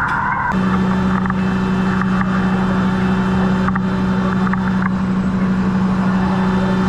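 Fire engine's engine running with a steady low drone; a higher steady tone drops out about half a second in.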